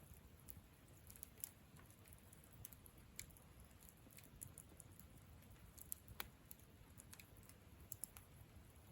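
Wood campfire crackling faintly, with irregular small pops and snaps, the sharpest one about six seconds in.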